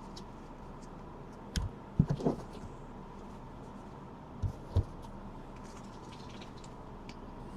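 A few soft thumps and knocks, like objects being handled and set down on a table, over a low steady hiss.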